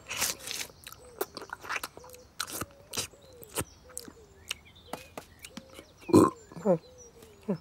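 Cartoon cat chewing and gnawing on a small bone: a string of sharp crunches, then two louder throaty mouth sounds about six seconds in.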